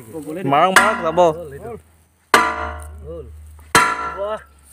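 Steel pipe struck with a hammer: three metallic clangs about a second and a half apart, each ringing on and dying away.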